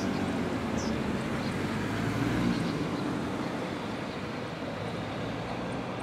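Low engine hum of a passing motor vehicle over steady outdoor rushing noise, loudest about two seconds in and then fading, with faint short high chirps now and then.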